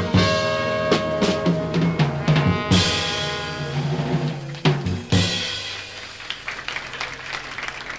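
A live jazz quintet of trumpet, tenor saxophone, piano, double bass and drums plays the closing bars of the set's sign-off theme. Horns hold notes over bass and drums, then come two big drum-and-cymbal crashes about three and five seconds in. The music dies away into the start of applause near the end.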